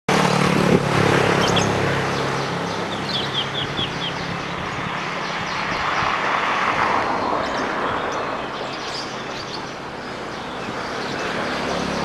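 Outdoor ambience at a songbird contest venue: an engine running in the first few seconds over a steady noisy background. A quick run of five high bird chirps comes about three seconds in, with scattered fainter chirps later.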